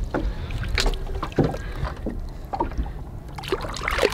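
Lake water lapping and splashing against the side of a small fishing boat, with a few short knocks. There is a louder splash near the end as a lake trout is held in the water alongside for release.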